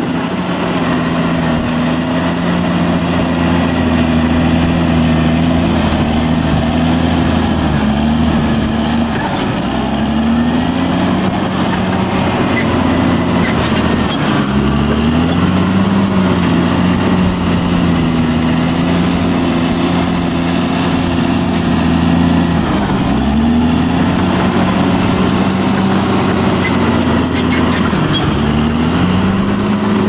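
Caterpillar D6R XL bulldozer's diesel engine running hard while the dozer pushes soil. Its note sags and climbs back about four times as the blade takes and sheds load, with a thin high whine running alongside.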